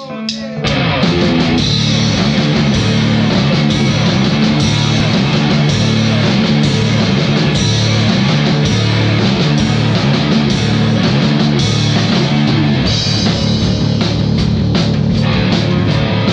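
Heavy rock song with distorted guitar and a full drum kit, coming in at full level about half a second in. The drums are an acoustic kit with Sabian B8X cymbals, played along to the track.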